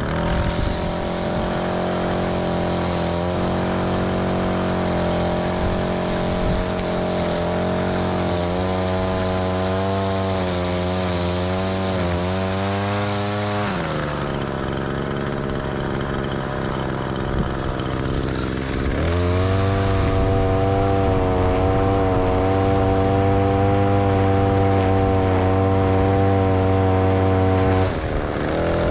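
Gas-powered string trimmer running at full throttle, its line cutting grass along a concrete edge. About 14 s in the throttle is let off and the engine idles for several seconds, then it revs back up to full speed, with a brief dip again near the end.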